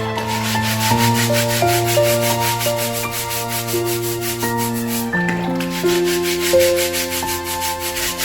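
A stiff brush scrubbing in quick, even back-and-forth strokes, with a short pause about five seconds in, over calm instrumental background music.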